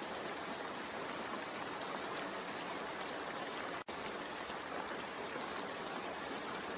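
Steady recorded rain, an even hiss, that cuts out for an instant a little over halfway through.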